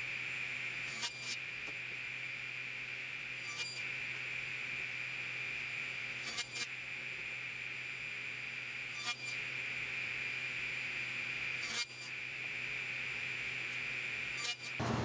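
Table saw running with a steady high whine over a low hum, as a wooden panel is pushed upright past its blade. Short clicks come every two to three seconds.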